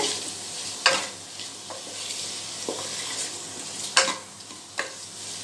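Diced vegetables and spices frying in a pressure cooker pan on a low flame, with a steady sizzle. A wooden spatula stirs them and knocks or scrapes sharply against the pot five times at uneven intervals.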